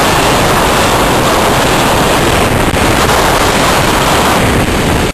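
Steady rushing noise of wind and road at speed on a microphone that is moving along with traffic, with no distinct engine note standing out. It cuts off suddenly at the end.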